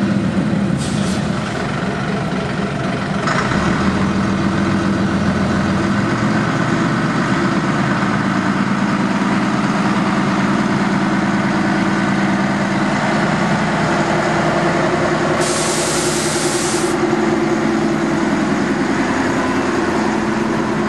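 Small diesel shunting locomotive's engine running steadily as it moves slowly along the line with a coach. A short hiss cuts in about fifteen seconds in.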